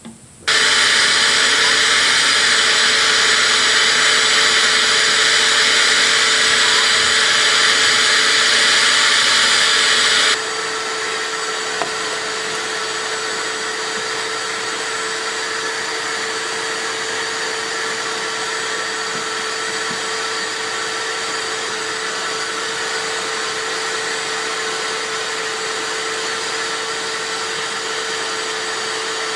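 Shop vac switched on about half a second in and running steadily with a loud rushing of air. About ten seconds in the rushing drops off abruptly, and the vacuum runs on quieter with a steady hum.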